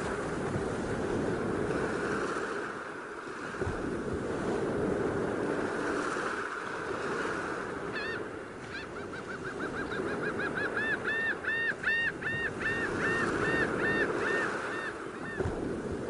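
Sea surf washing steadily on the beach. About halfway in, a bird starts a fast series of repeated rising-and-falling call notes, about four a second, growing louder and stopping near the end.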